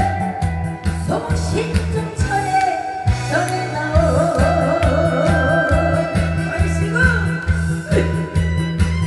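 A woman singing a Korean trot song into a microphone over a loud karaoke backing track with a steady beat, played through PA speakers.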